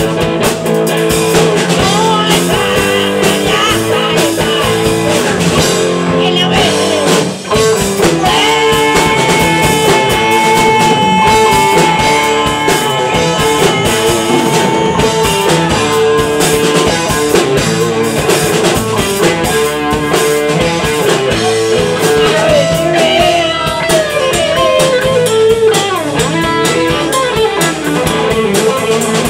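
Live rock band jamming on electric guitars, bass and drum kit, played loud. A long held lead note runs from about eight seconds in to about fifteen.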